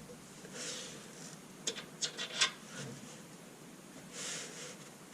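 Faint rubbing and a few light clicks, bunched about two seconds in, as small parts are worked loose and handled during snowblower disassembly.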